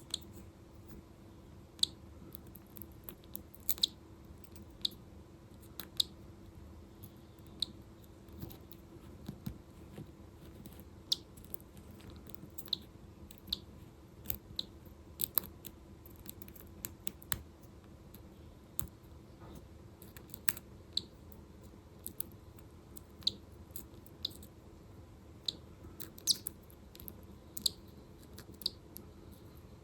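Irregular small sharp clicks and crunches, one or two a second, over a steady low hum: the kind of sound made by eggshell and dried membrane being picked away from a hatching chick's egg.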